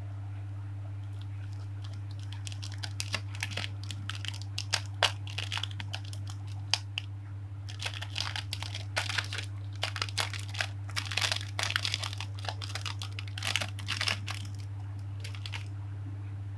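Thin clear plastic bag crinkling and rustling as fingers open it and pick out small stickers, in quick irregular crackles from about two seconds in until near the end, over a steady low hum.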